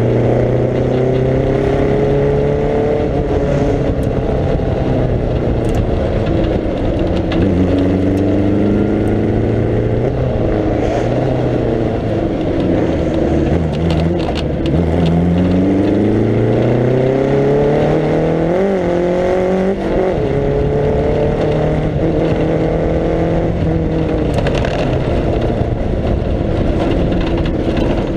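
1937 Riley 12/4 Sprite Special's four-cylinder engine heard onboard under racing load, its revs rising and falling several times as it accelerates, brakes and changes gear. There is a sharp rise and drop in pitch a little under two-thirds of the way through. Its preselector gearbox has lost second gear, so the changes jump between first and third.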